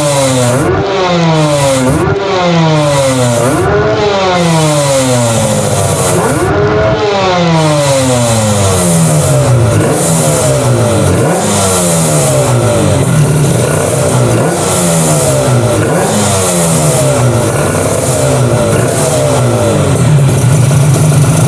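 Kawasaki Ninja RR 150 two-cylinder two-stroke engine being free-revved in repeated sharp blips, each rising quickly and falling away, about one every second or two, before settling to a steady idle near the end.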